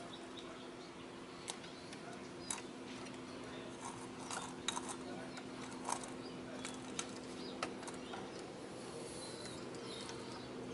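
Scattered light clicks and taps, about eight in all, as the arm of a diecast model automated side-loader garbage truck and a toy trash cart are moved by hand, over a steady low hum.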